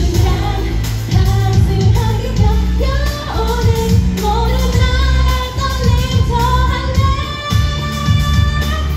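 Pop song with female singing over a backing track with a heavy bass line, played over the stage loudspeakers.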